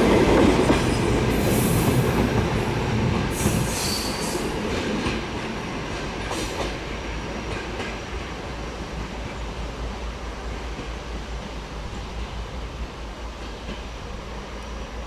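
ER2K electric-train cars rolling away along the track, the wheel noise fading steadily as the train recedes, with several brief high wheel squeals in the first few seconds.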